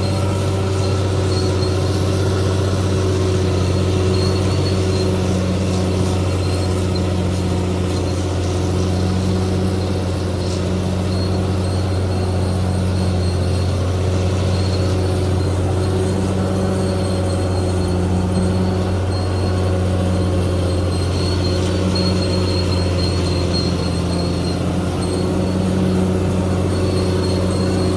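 CAT D6R XL bulldozer's diesel engine running steadily under work, with a faint high squeal coming and going over it.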